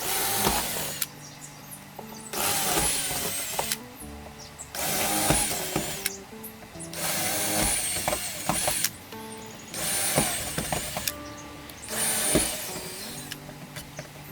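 Cordless drill drilling out the rivets that join the sailboat's deck to its hull, in six short bursts of a second or two each with a high whine. Background music plays under it.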